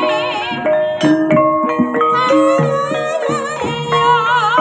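Banyumasan gamelan playing a gending: bronze metallophones and gongs striking a steady stream of notes over a kendang drum, with a high melody line wavering in a wide vibrato, the sinden's singing, rising in prominence near the end.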